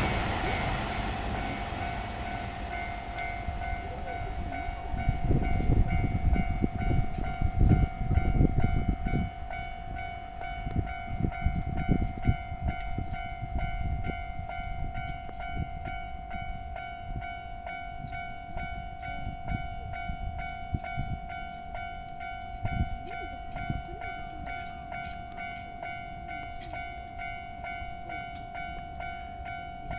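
Level-crossing alarm ringing steadily as a Keihan electric train passes, its wheels rumbling and clacking over the rail joints. The train is loudest about five to thirteen seconds in, then fades away under the bell.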